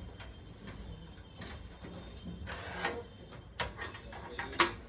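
Clicks and light knocks of computer cabinet parts being handled and fitted, a few sharp clicks among quieter handling noise, the loudest near the end.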